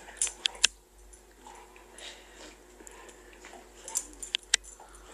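A dog and a kitten play-fighting, making a few sharp clicks and light scuffling: a cluster of clicks in the first second and two more near the end.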